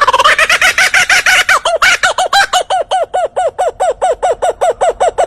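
A bird calling a long, fast series of short, repeated notes, about six a second, each one rising and falling in pitch.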